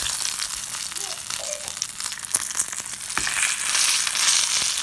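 Whole climbing perch (koi) frying in hot oil: a steady sizzle full of small crackles and spatters, growing louder about three seconds in.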